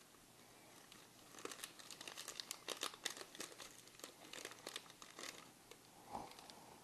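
Faint crinkling and tearing of a small plastic parts bag being opened by hand to take out a new O-ring, a run of quick crackles through the middle.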